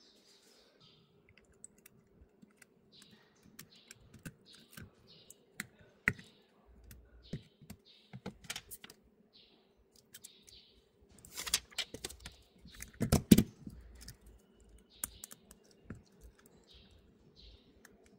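Small clicks and taps of phone parts being handled on a silicone repair mat, as an iPhone 11 display assembly is lifted, turned and fitted back to the frame. A louder cluster of knocks comes about two-thirds of the way through.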